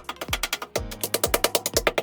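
Background music with a fast, steady percussive beat of wood-block-like clicks over a bass line.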